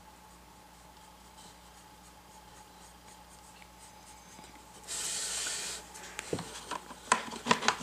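Faint scratching of a paintbrush stroking paint onto canvas. About five seconds in, a short, even hiss lasts about a second, followed by a run of light clicks and knocks.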